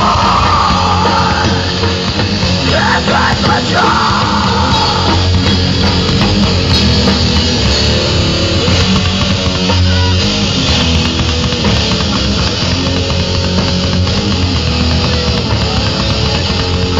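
Loud heavy rock music with electric guitars and drums.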